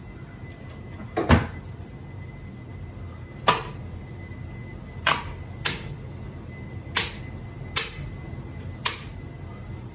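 Seven sharp knocks spaced one to two seconds apart, from blows struck on a ceiling fan, over a steady low hum.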